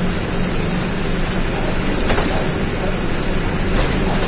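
Caio Apache Vip 4 city bus under way, heard from inside: steady engine and road noise with a low hum, and a couple of faint knocks from the body about two seconds in and near the end.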